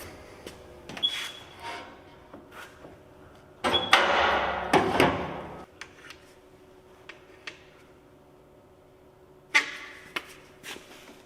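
Workshop handling noises: scattered clanks and knocks, with a loud burst of rough noise lasting about two seconds around four seconds in, over a faint steady hum.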